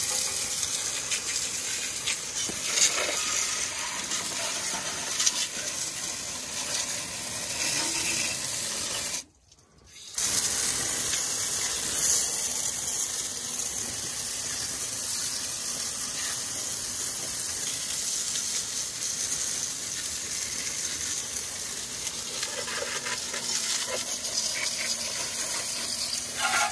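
Jet of water from a garden-hose spray nozzle hitting the engine and engine bay, a steady hiss and splatter as the scrubbed engine bay is rinsed. The spray breaks off for about a second roughly nine seconds in, then carries on.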